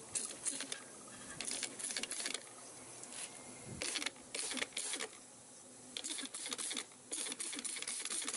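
Trigger spray bottle spritzing in quick repeated bursts, squirted over the brass air fittings of an air-suspension valve manifold and compressor to find leaks.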